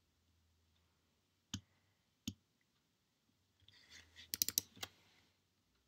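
Faint clicks from computer input while editing code: two single clicks, then a quick run of about six about four seconds in.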